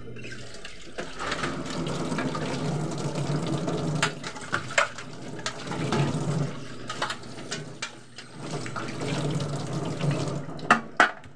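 Water running from a kitchen tap into the sink as shredded banana blossom is rinsed by hand, with a few sharp knocks and clinks of a container against the sink, two of them close together near the end.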